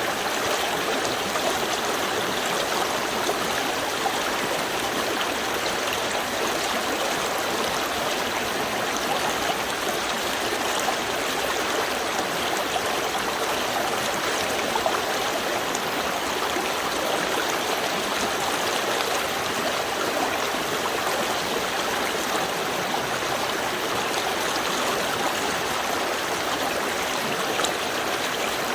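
Small stream running steadily, water gurgling and splashing over stones.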